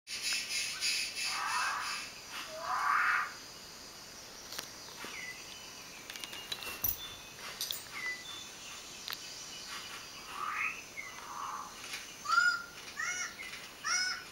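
Birds calling on a nature documentary's soundtrack, heard through a TV's speakers. There are two rising calls in the first few seconds, a few faint clicks in the middle, and near the end a run of short repeated calls, about two a second.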